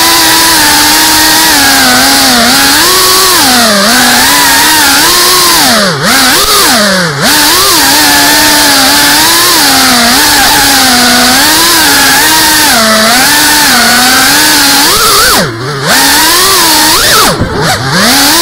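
FPV quadcopter's motors and propellers whining loudly right at the onboard camera, the pitch constantly rising and falling with the throttle over a rush of air. Near the end the throttle is chopped several times, the whine dropping away and sweeping back up.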